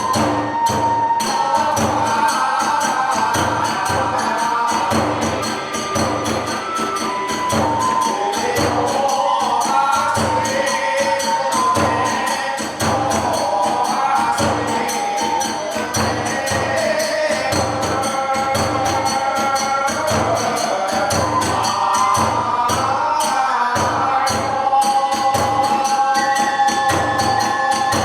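Kagura hayashi ensemble playing a dance accompaniment: a taiko drum beating a steady rhythm, small hand cymbals clashing and a bamboo kagura flute playing a wavering melody.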